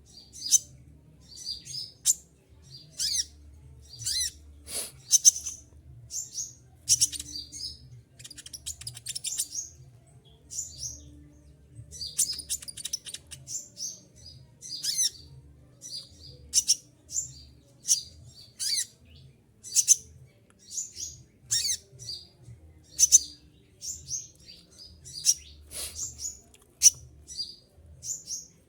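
A konin (kolibri ninja) sunbird singing hard and without pause: short, sharp, high-pitched chirps and brief shrill trills, about one burst a second.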